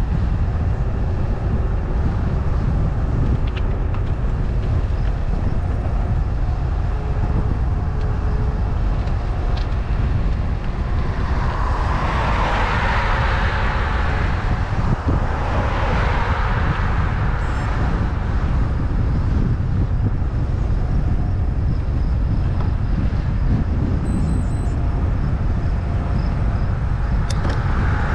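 Steady deep rumble of road and wind noise while travelling along a road. Two louder rushing swells come through in the middle, about four seconds apart, like vehicles passing.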